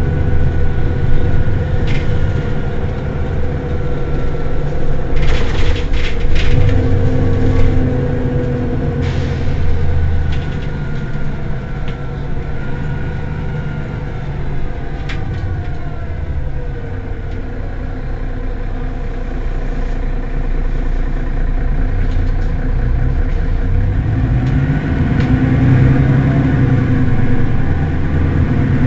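Mercedes-Benz Citaro city bus engine idling while the bus stands still, with a few sharp clicks about five to seven seconds in. Near the end the engine note rises and stays higher.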